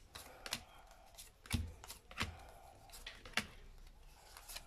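Fortune-telling cards (a Lenormand deck) being dealt and laid onto a cloth-covered table: a series of light, irregular card flicks and taps, with a couple of soft thumps as cards are set down.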